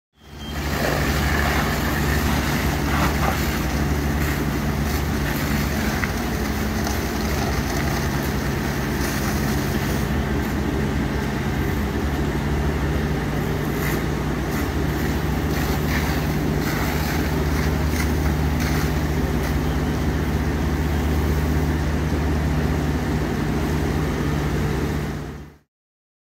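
Fire engine's diesel engine running steadily as it pumps water to the hose lines, with a low, even hum under a constant rushing noise.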